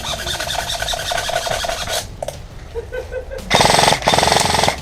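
Airsoft electric rifles firing on full auto: a quieter rapid rattle for about two seconds, then two loud rapid bursts near the end.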